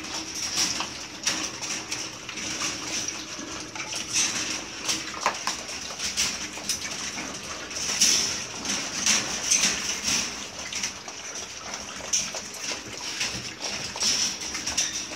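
A litter of Belgian Malinois puppies lapping and slurping milk from a stainless-steel feeding bowl: many quick, irregular wet clicks as their tongues and muzzles work the liquid and tap the metal.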